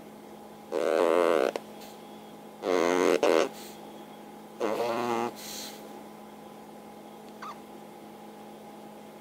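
A pug's snoring played back at three times speed. Three short, high, wavering buzzes come about two seconds apart and sound like farts, over a steady hum.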